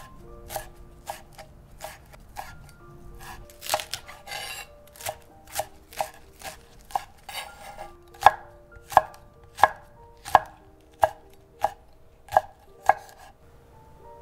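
Chef's knife chopping on a wooden cutting board, slicing greens and then a red chilli pepper: sharp knife strikes on the board, irregular at first, then a steady stroke about every 0.7 seconds in the second half.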